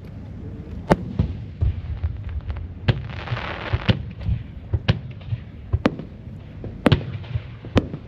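Aerial firework shells bursting in a display: sharp reports about once a second over a steady low rumble, with a spell of hiss between about three and four seconds in.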